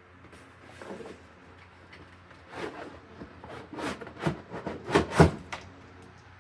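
A cardboard box and its packaging being handled as a small fan is lifted out, a string of rustles and knocks growing busier, with the loudest knocks about five seconds in.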